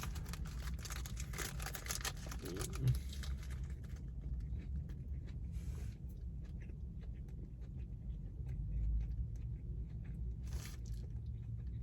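Eating sounds from a spicy grilled chicken sandwich: chewing with crackly rustling, busiest in the first four seconds and sparser after, over a low steady hum.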